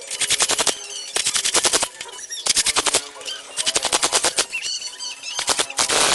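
Pneumatic impact tool hammering in short bursts of rapid impacts, about five bursts each under a second long, as bolts are run down during engine assembly. A burst of hiss starts near the end.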